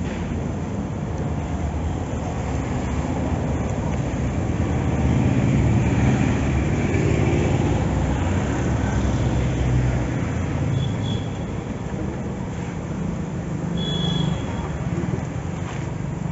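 Road traffic rumbling steadily, swelling as a vehicle passes about five seconds in and fading again after about ten seconds.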